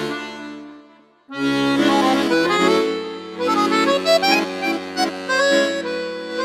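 Background music: an accordion tune with held chords. It fades away about a second in, then starts again and plays on.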